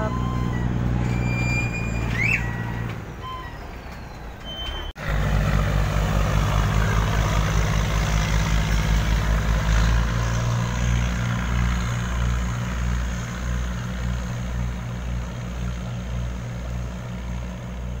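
Diesel engine of a Chao Phraya express boat running under way, loud and throbbing as the boat pulls away through churning water. Just over halfway through it settles into a slower, even throb.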